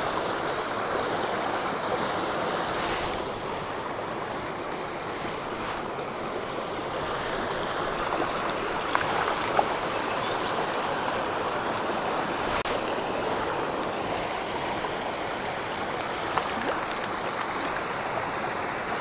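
Stream water rushing in a steady flow, with a few brief ticks in the first two seconds.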